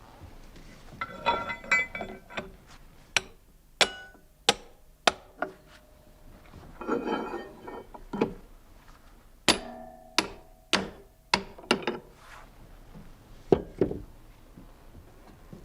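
Irregular hammer-like strikes on metal, some ringing on briefly, with two short stretches of jangling metallic clinks. Several of the strikes come in runs about half a second apart.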